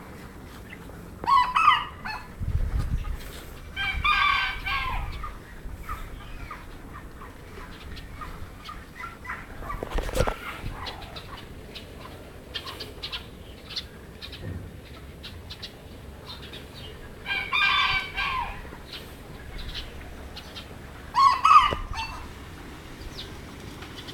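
Serama bantam rooster calling four times, short loud calls of about a second each: two in the first five seconds and two in the last seven. Between the calls there are faint scratchy clicks and one sharp knock about ten seconds in.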